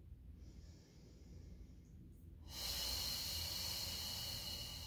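A woman breathing: a faint breath in, then about halfway through a long, louder breath out that slowly fades.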